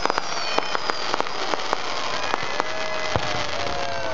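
Aerial fireworks crackling: a dense run of sharp pops in quick succession over a steady hiss, with thin whistling tones sliding downward.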